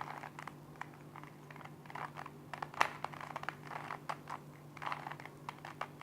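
Plastic 3x3 Rubik's cube being turned by hand: irregular light clicks and clacks as its layers rotate, over a faint steady hum.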